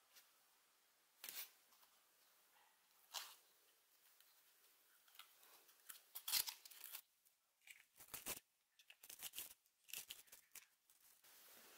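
Paper masking tape being peeled and ripped off a freshly painted drill housing in short, sharp tearing pulls, a few isolated ones at first and then a quick cluster with crinkling of the loose tape.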